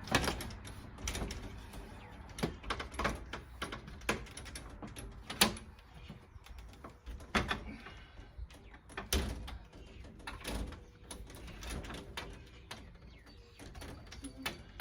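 Irregular knocks, clicks and scraping of a flexible screen frame being squeezed and pushed into a storm door's window track, with a few louder knocks.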